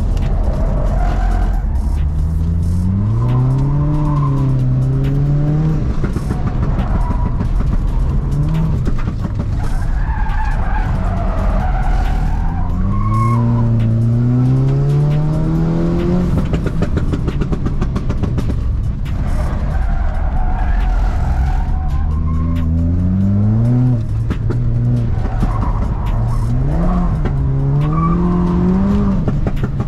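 Skoda sedan's engine heard from inside the cabin, rising in pitch as the car accelerates hard and dropping back, several times over. Tyres squeal through the corners in between.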